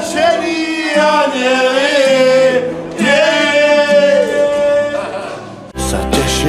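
Several men singing together, holding long notes over a light accompaniment. About five and a half seconds in, full backing music with a bass line comes in.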